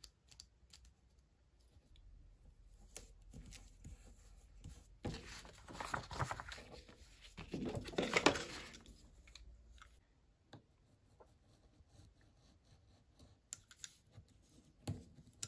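Paper handling: planner pages and sticker sheets rustling and sliding, with small taps and clicks. The loudest rustling comes in a stretch of a few seconds in the middle.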